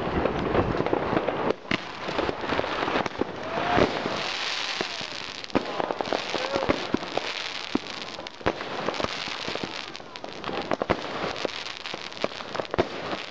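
Fireworks going off in a dense barrage: many sharp bangs and pops at irregular intervals over a continuous crackling hiss.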